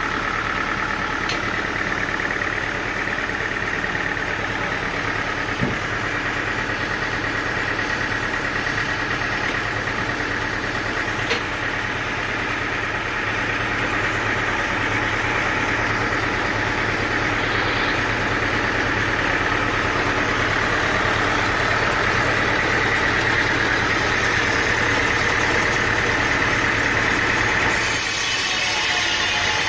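An engine running steadily, with a few faint clicks; the sound changes abruptly near the end as the low hum drops away and a hiss takes over.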